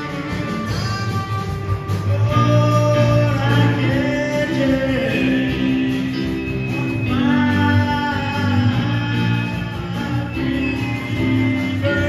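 Live rock band playing an instrumental passage: an electric lead guitar plays long, sliding, bent notes over rhythm guitar, bass and drums.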